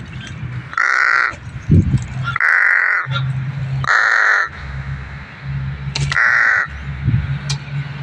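A pet crow cawing four times, each harsh caw about half a second long and coming a second or more apart.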